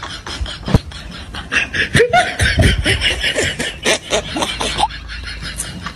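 Laughter in quick, repeated snickers, starting about a second and a half in and lasting a few seconds, after a sharp click just under a second in.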